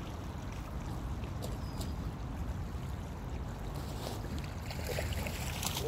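Steady low rumble of wind on the microphone over running creek water, with a few faint crunches of shoes shifting on loose gravel near the end.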